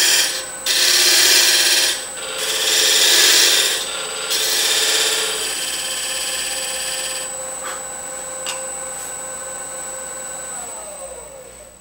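Wood lathe spinning a wooden box base while a square-ended tool held flat scrapes the tenon, in about three loud bursts of cutting noise over the first four seconds: light cuts trimming the tenon to fit the lid. The cutting then eases off, the lathe motor runs on with a steady hum, and near the end its pitch drops as the lathe spins down.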